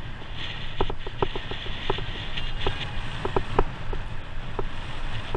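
A cyclocross bike riding over bumpy grass, its frame and chain rattling in short, irregular clanks, over a steady low rumble of tyres and wind.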